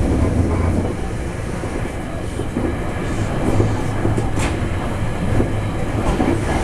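Cabin noise inside a Taiwan Railway TEMU1000 Taroko Express tilting electric train at speed: a steady low rumble of the wheels on the rails. A brief hiss comes about four seconds in.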